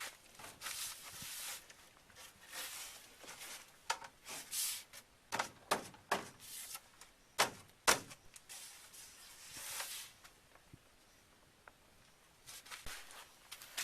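Irregular knocks, scrapes and rustles of materials being handled, with a few sharp clicks; it is busiest in the middle and quiet for a couple of seconds near the end.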